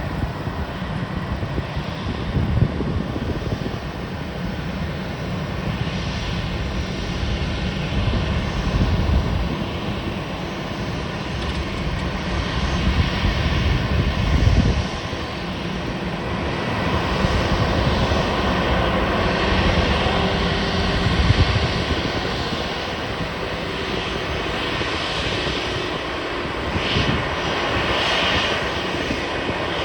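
Airbus A320 jet engines running, a steady noise that grows louder and brighter over the second half.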